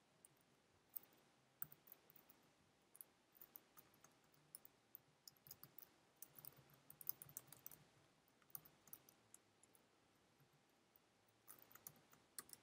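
Faint computer keyboard typing: irregular bursts of keystroke clicks, with a short pause about three-quarters of the way through.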